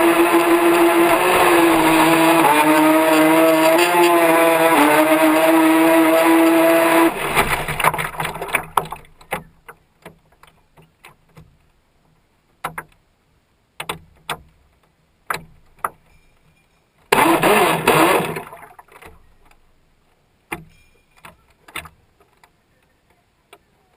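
RC speed boat's motor whining at full throttle, heard from on board with water rushing along the hull. The motor cuts off about seven seconds in and the boat drifts, with scattered small water slaps and knocks against the hull and one short burst of throttle about two thirds of the way through.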